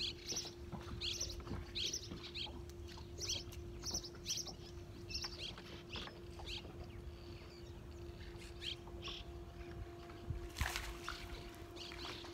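Small birds chirping in short high notes, about two a second for much of the time, over a steady low hum. There is a short louder noise about ten seconds in.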